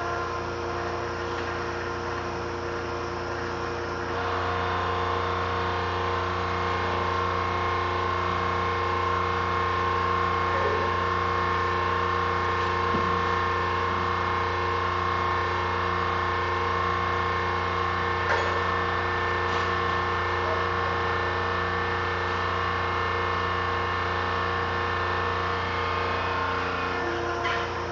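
Hydraulic power unit's electric motor and pump running with a steady hum, stepping up in level and tone about four seconds in and changing again near the end as the crane's control levers are worked.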